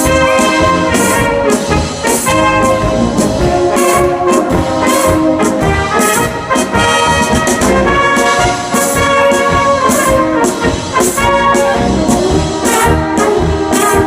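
Brass band playing a polka: trumpets and trombones carry the tune over a steady, evenly pulsing beat of drum strikes.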